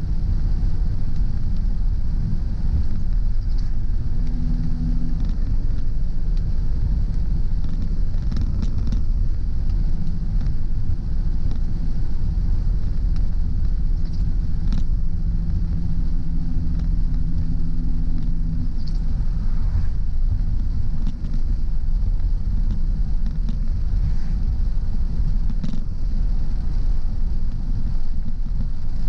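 Car driving on a rainy road, heard from inside: a steady low rumble of engine and road noise with an even hiss, and a few faint ticks scattered through.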